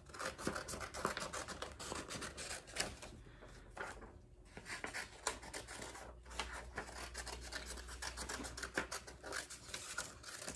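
Scissors cutting out printed paper pictures: a steady run of quick snips and paper rustling, with a short pause about four seconds in.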